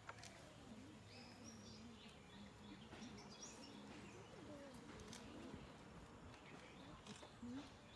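Near silence: quiet garden ambience with small birds chirping now and then.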